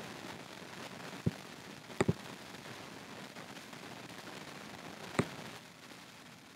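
Computer mouse clicks, a handful of sharp single clicks and one quick double click, over a faint steady hiss.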